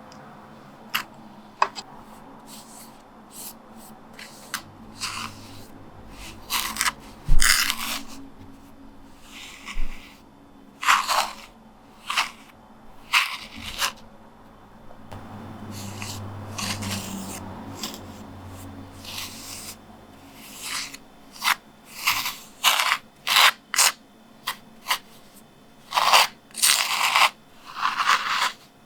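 Short, dry scraping and crunching strokes on a carved linoleum block, coming at uneven intervals and bunching closer together toward the end.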